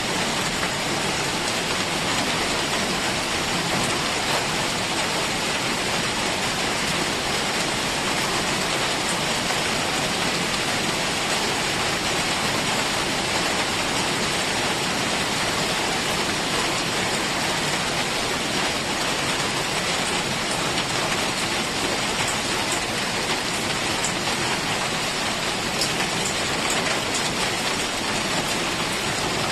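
Heavy rain falling steadily, an even hiss of pouring rain with scattered drop patter.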